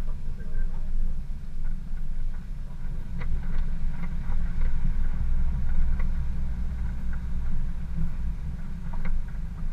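Off-road 4x4 driving slowly over a rutted dirt track: a steady low engine and drivetrain rumble, with scattered light knocks and rattles.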